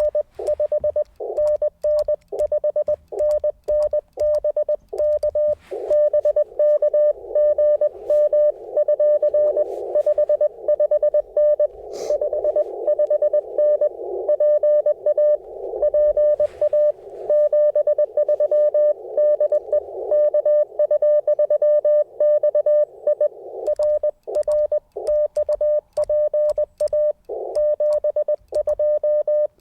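Morse code from an Icom IC-705 transceiver: a steady tone near 600 Hz keyed on and off in dits and dahs. For the first few seconds and near the end the tone is clean between characters, as the radio's own sidetone while sending. For the long middle stretch the code comes in through a band of static hiss, as a station being received.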